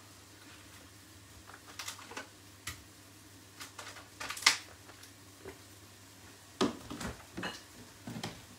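Scattered light clicks and knocks of a plastic food tray and a kitchen knife being handled over a wooden chopping board as raw chicken breasts are laid out, with a low steady hum underneath. The sharpest knocks come about halfway through and again about two seconds later.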